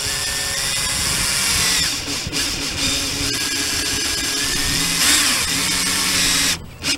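Cordless drill driving a screw through a plastic tail light housing, the motor running steadily with its pitch dipping now and then as the screw bites. It stops suddenly near the end.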